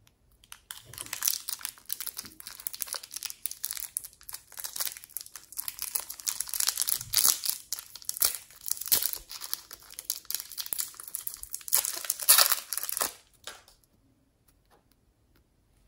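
Thin clear plastic packaging crinkling and tearing as it is unwrapped and peeled by hand, in quick irregular crackles. It is loudest just before it stops, a couple of seconds before the end.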